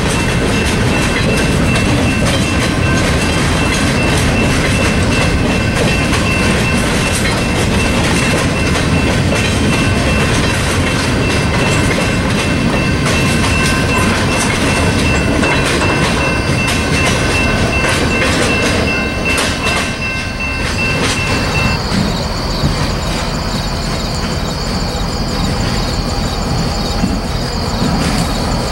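Freight cars rolling past, wheels clattering on the rails with a steady high squeal. After about three-quarters of the way through, the squeal stops and the sound turns quieter and different.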